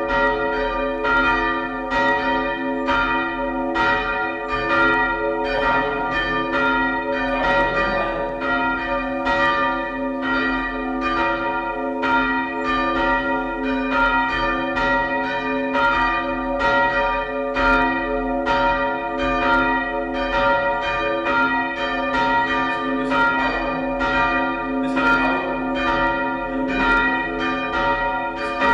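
Two church bells swung by hand on ropes, their clappers striking steadily in an overlapping pattern, about three strokes a second between them, with each bell's ring carrying on under the next strokes.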